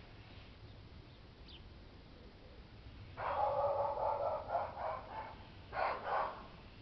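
A dog barking: a drawn-out bark about three seconds in that breaks into several quick barks, then one more bark near the end.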